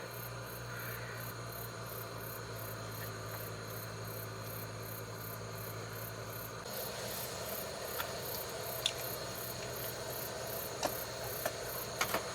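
Insects chirping in a steady, high-pitched rhythm of two or three chirps a second, over a low steady hum that stops about seven seconds in; a few light clicks near the end.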